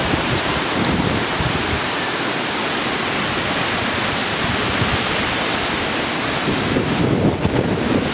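Thunderstorm gust-front wind rushing in a loud, steady roar, with gusts buffeting the microphone near the end.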